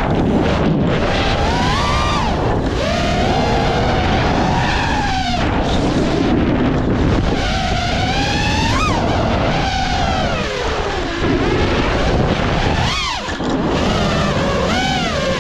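FPV racing quadcopter's brushless motors whining in freestyle flight, the pitch rising and falling sharply over and over as the throttle is punched and cut.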